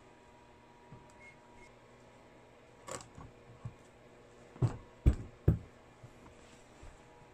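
A few light clicks, then three dull thumps about half a second apart, as a sofa bed's side panel is knocked into place against the wooden frame.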